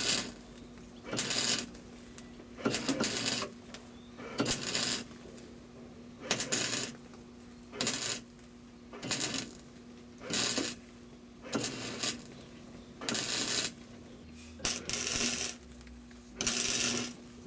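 MIG welder laying a series of short stitch or tack welds on sheet steel, each weld a crackling burst of about half a second to a second, repeated about a dozen times with brief pauses between, over a steady low hum.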